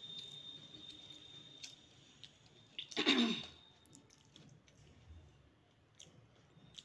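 One sharp, loud burst of breath from a person's nose and throat, about three seconds in, like a sneeze. Around it, faint clicks and crackles of crisp golgappa shells being handled.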